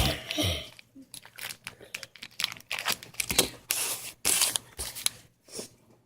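Plastic candy wrapper being crinkled and torn open by hand, in a run of short, irregular crackles.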